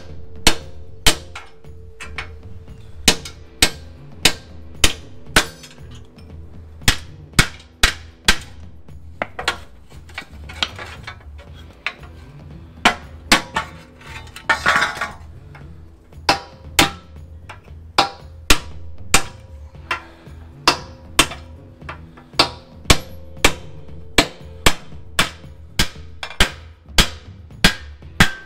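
Steel hammer blows on a steel truck chassis rail, about one or two a second with short pauses, as a chisel is driven against the rail to cut parts off. There is a short scraping noise about halfway through.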